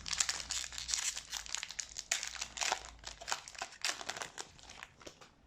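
A 2020 Donruss hobby card pack's plastic wrapper being torn open and crinkled in the hands: a dense run of crackles that thins out over the last second or so.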